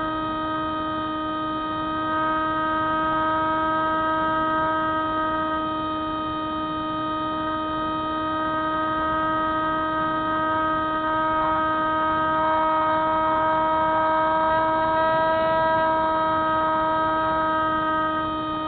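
Electric motor and propeller of a Spyhawk FPV model plane running at steady throttle: one steady, loud drone whose pitch holds.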